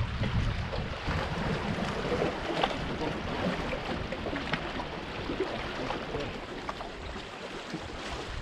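Wind buffeting the microphone in gusts, easing after the first second and picking up again near the end. Under it, choppy river water washes and laps against the shoreline rocks.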